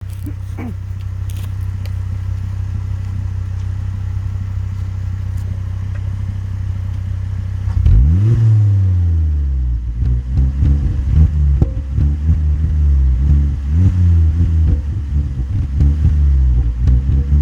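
Volvo V50 T5's turbocharged 2.5-litre inline five-cylinder idling steadily, then revved about eight seconds in and blipped again and again, with crackles and pops from provoked misfires, softened by the middle silencer.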